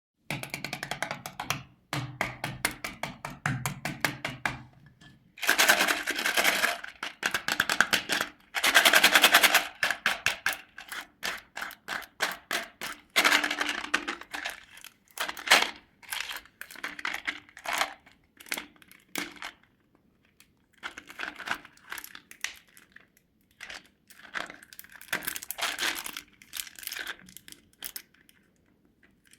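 Candy being tapped: quick flurries of sharp clicks and crackles with short pauses between. The densest, loudest runs come around six and nine seconds in.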